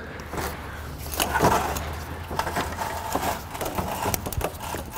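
A car radiator with its plastic fan shroud being lowered and worked into place by hand, rubber mounts seating: scattered scuffing and a few knocks of plastic against the body, over a low steady hum.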